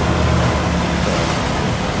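An engine runs steadily with a low hum under a loud, even rushing noise.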